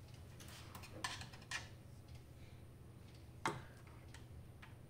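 Faint scattered clicks and small knocks of a screwdriver working the screws of a sensor inside an opened tube welder, the loudest about three and a half seconds in, over a faint steady low hum.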